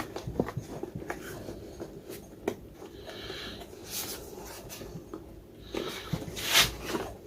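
Scattered clicks and knocks of plastic vacuum-cleaner parts being handled and fitted back together, with a louder scrape about six and a half seconds in.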